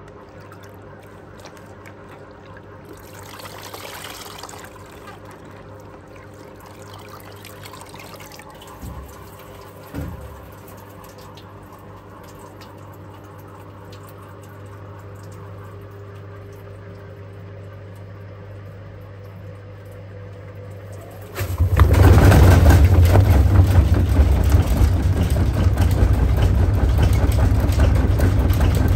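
Hotpoint Ariston Aqualtis washer dryer with a soaking-wet hoodie loaded. A low steady hum and a couple of soft thumps come first. About 21 seconds in, a loud, steady rush of water swishing and splashing inside the turning drum starts and keeps going.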